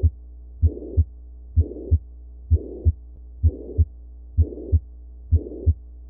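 Recorded heart sounds of a pansystolic (holosystolic) murmur: paired S1 and S2 beats about once a second, with a murmur filling the whole gap from S1 to S2 in every beat. This is the murmur of mitral regurgitation, tricuspid regurgitation or a ventricular septal defect.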